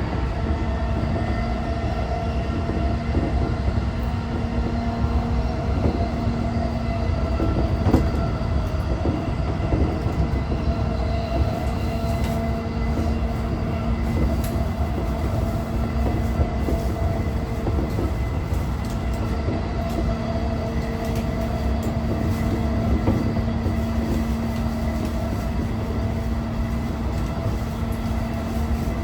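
Inside a JR East E233-5000 series motor car running at speed: a steady hum from the traction motors and Mitsubishi IGBT inverter over the rumble of wheels on track, with one sharp clunk about eight seconds in.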